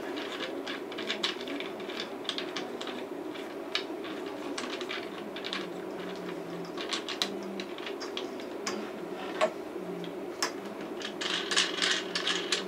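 Small scattered clicks and ticks of tripod hardware being handled as the ball head of a K&F Concept S210 tripod is unscrewed from its centre column, with a quicker run of clicks near the end.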